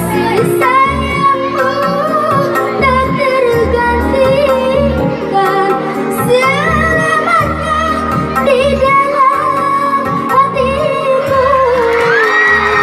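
A child singing a sweet, ornamented melody with slides and vibrato over instrumental backing with a steady bass beat.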